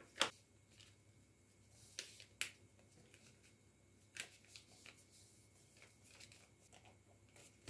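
A sheet of origami paper being folded and creased by hand: a few short, faint paper crackles and taps with quiet gaps between.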